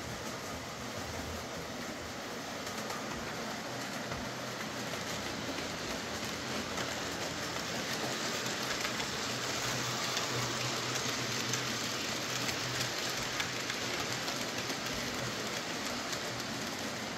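OO gauge model train running past on the layout track: a steady rushing rattle of wagon wheels on the rails over a low motor hum. It grows louder as the train passes closest, about halfway through, and eases off slightly near the end.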